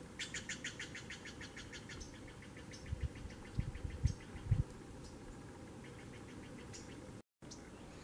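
A small bird singing rapid trills of evenly repeated high notes, the first and loudest one about two seconds long, followed by softer, lower trills. A few low thumps come about three to four and a half seconds in.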